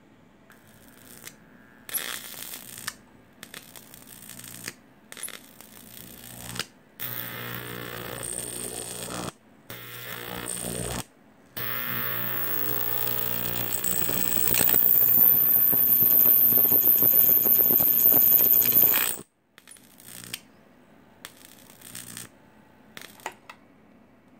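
High-voltage arc from a flyback transformer driven by an IGBT half-bridge straight off mains, buzzing and crackling in a series of short bursts as the arc strikes and breaks. It then burns continuously for about eight seconds, with a steady high-pitched whine coming in partway and making this the loudest part, before cutting off suddenly.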